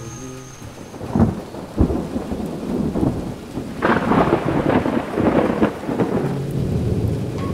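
Thunder: two sharp cracks about a second in, then a long rolling rumble from about four seconds.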